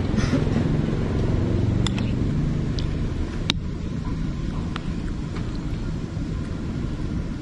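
Steady low rumble of road traffic going by. Over it come a few sharp clinks of a metal spoon against a ceramic bowl, about two to five seconds in.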